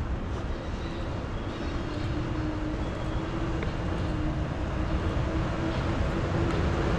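City street ambience: a steady traffic rumble with a constant low hum, slowly growing louder.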